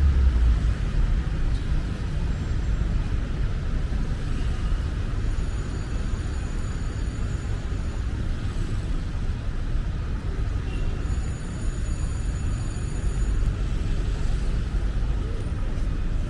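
Steady city street noise with a low traffic rumble. Faint high-pitched tones come and go twice.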